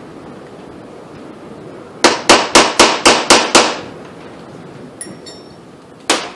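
Hammer tapping a steel punch to drive a roll pin into an AR-15 gas block: a quick run of about seven sharp metallic strikes at roughly four a second, then a couple of light clinks and one more strike near the end.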